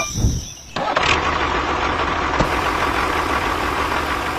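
An engine running steadily, coming in suddenly about a second in.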